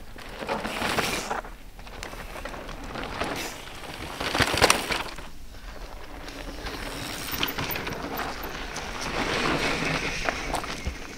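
Mountain bikes passing on a dry dirt trail: rushes of tyre noise over loose dirt and leaves with clattering from the bikes, rising and falling with each pass, loudest about four and a half seconds in.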